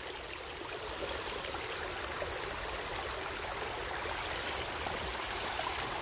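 Shallow creek water running steadily over stones and fallen logs.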